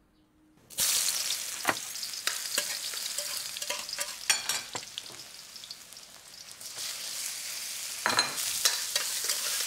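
Meat sizzling as it is stir-fried in a metal wok, with a metal spatula scraping and clinking against the pan. The sizzle starts suddenly just under a second in and grows louder near the end.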